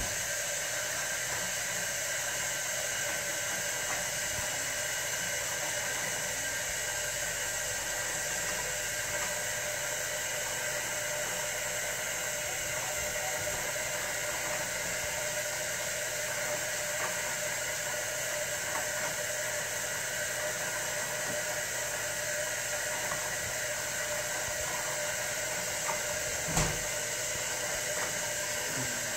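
Steady hiss of water running into a large aquarium, with a brief low thump near the end.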